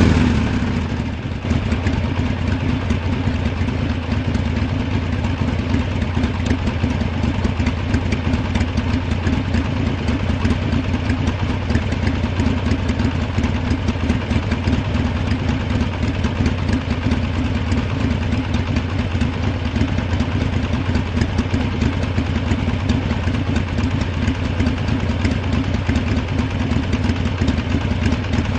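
Harley-Davidson V-twin motorcycle engine idling steadily just after starting, easing down from a slightly higher level in the first second or so.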